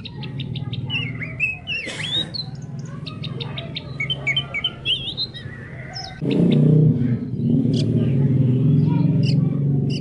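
Oriental magpie-robin (kacer poci) singing a varied run of quick chirps, clicks and rising and falling whistles. Underneath is a steady low pulsing background sound that gets louder a little after halfway.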